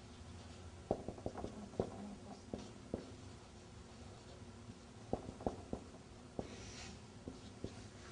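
Marker pen writing on a whiteboard: faint taps and short strokes in two spells, one starting about a second in and another about five seconds in.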